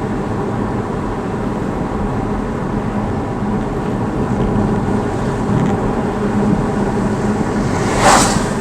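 Car engine and tyre noise heard inside the cabin while driving, a steady hum. A brief sharp noise comes near the end.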